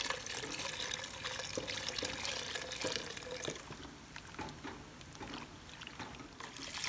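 Liquid poured in a stream into a pot of thick, creamy pot-pie filling while a silicone whisk stirs it, with small clicks and sloshing. The pouring stops about three and a half seconds in, leaving the whisk's clicks and stirring.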